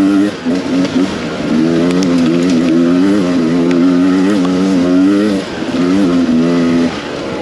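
Beta 300 RR two-stroke enduro motorcycle engine running under constantly changing throttle. Its note rises and falls and drops away briefly several times as the throttle is rolled off and opened again.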